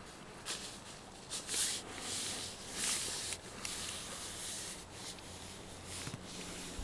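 Faint rubbing and soft irregular swishes of handheld camera handling as the camera is turned around in the canoe.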